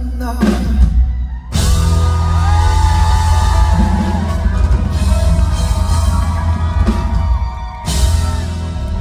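Live rock band with drum kit and bass playing as a male singer holds long sung notes, with sharp full-band breaks about a second and a half in and again near the end.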